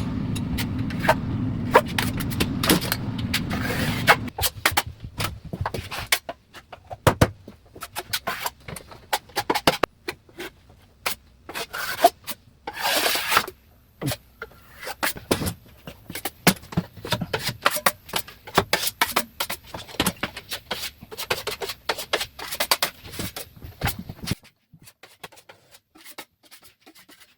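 Putty knife spreading and scraping wood filler over seams in wooden trim, in many short, irregular strokes: a first coat of patching. A low steady hum runs under the strokes for the first four seconds, then stops.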